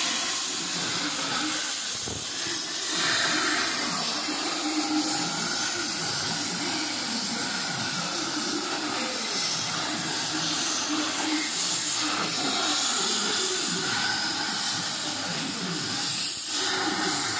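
Gas cutting torch hissing steadily as its flame and oxygen jet cut through a big steel barrel.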